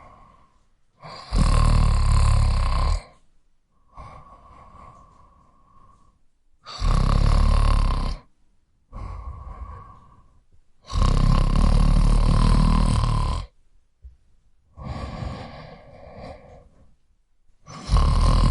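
A person snoring: four loud snores about four to five seconds apart, each lasting one to two and a half seconds, with a quieter breath between each.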